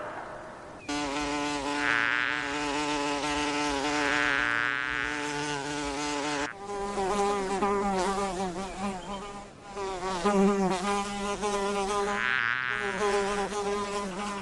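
Cartoon flying-insect buzzing: a steady pitched drone with a slight waver. A higher buzz starts about a second in, and past the middle a lower buzz takes over until the end.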